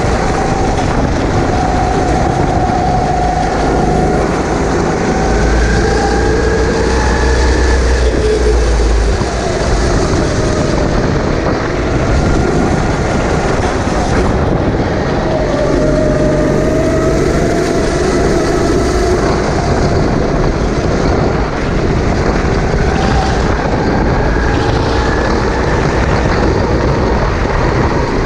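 Kart engine running flat out on track. Its pitch climbs along the straights and drops back into the corners, over steady noise.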